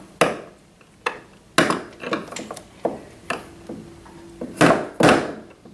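Irregular sharp knocks and taps of a hand tool against a wooden door and its hinge fittings, about seven in all, the loudest two near the end, as the door is worked off its hinges.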